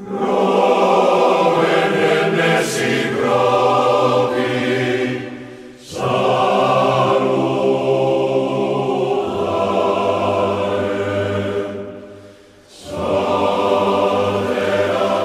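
A choir singing slow, held chords as background music, in three long phrases with short breaks between them.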